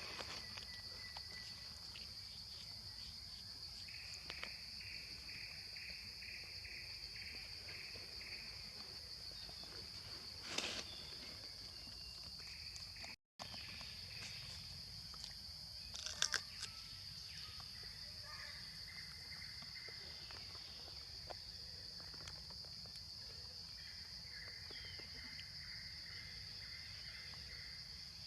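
Insects droning steadily at a high pitch, with a second, pulsing insect call for a few seconds and a couple of brief knocks or rustles.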